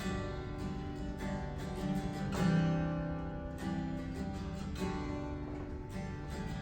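Acoustic guitar playing slow strummed chords, each left to ring before the next strum.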